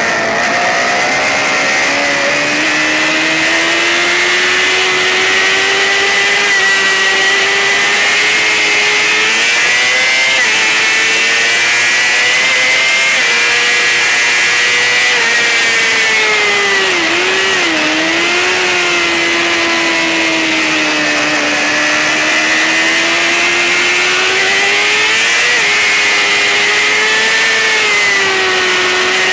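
Sportbike engine running hard at high revs in a race. Its pitch climbs steadily, drops back sharply a few times and dips low near the middle before climbing again, over a rush of wind noise.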